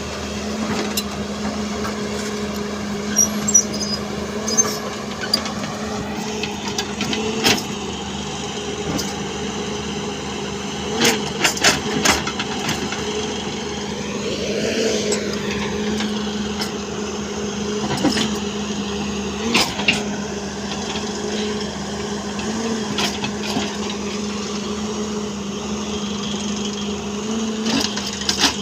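A machine's engine running at a steady pitch, with scattered knocks and clanks over it.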